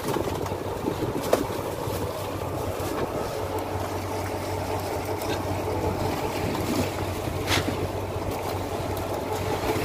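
Fishing boat's engine running with a steady low hum, under wind and sea noise, with a couple of short knocks from work on deck.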